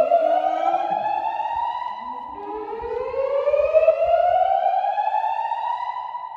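Fire alarm voice-evacuation speakers sounding a slow whoop tone: two slow rising sweeps of about four seconds each, the second cutting off near the end.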